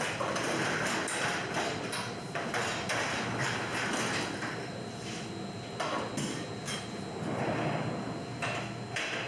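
Bakery work noises: a busy run of knocks, clatters and scrapes from handling equipment, over a faint steady high tone.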